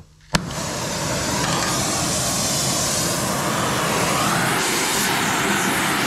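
An oxy-fuel torch is lit with a spark lighter: a sharp pop about a third of a second in as the gas ignites, then the flame's steady rushing hiss as it heats steel.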